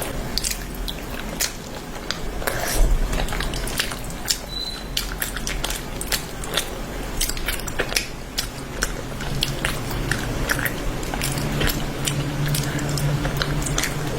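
Close-miked eating: chewing with frequent wet mouth smacks and clicks. A low steady hum comes in about nine seconds in.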